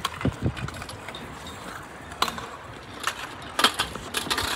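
Wheels and decks of kick scooters and skateboards clattering on a skate track: scattered knocks and rattles with a few sharper clacks.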